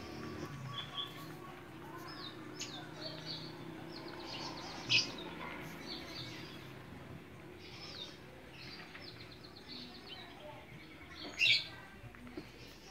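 A mixed flock of small caged finches chirping: short, high calls scattered throughout, with two louder chirps about five seconds in and near the end.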